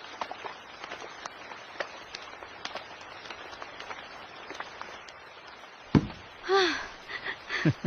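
Steady rain with scattered drops ticking. About six seconds in comes a sharp knock, then a short pitched call that rises and falls.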